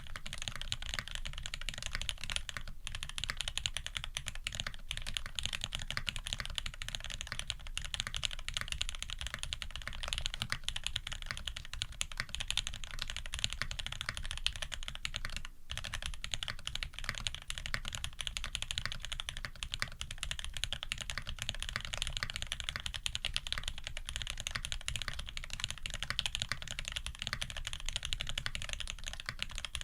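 Continuous fast typing on a custom Tx65v2 mechanical keyboard with lubed SP-Star white switches, a brass plate and GMK keycaps: a dense run of key clacks with two brief pauses.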